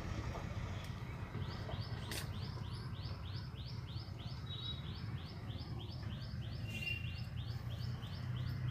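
A bird calling in a fast, even series of short descending notes, about three or four a second, starting a second or two in, over a steady low rumble.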